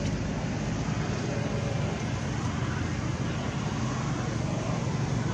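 Steady outdoor background noise: a low rumble with a hiss above it. There are no clear calls or knocks.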